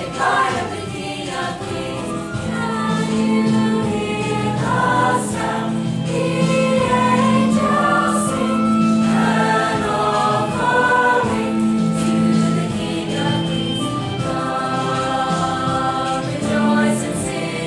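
Choir singing in several parts, with long held notes overlapping.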